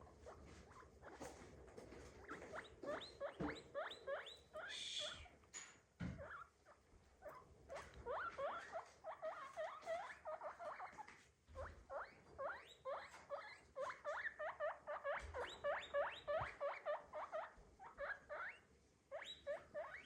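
Guinea pig squeaking in long runs of short rising calls, about four a second, pausing briefly a few times.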